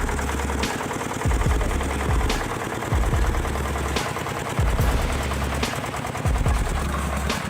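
Tractor engine chugging hard under load, a rapid rattling run of exhaust beats, with a sharp knock about every second and a half.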